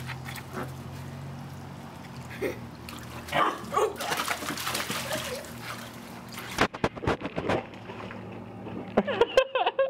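Water splashing and sloshing in a shallow plastic kiddie pool as a Siberian husky puppy jumps and paddles in it, with a quick run of sharp knocks about seven seconds in and a brief high vocal sound near the end.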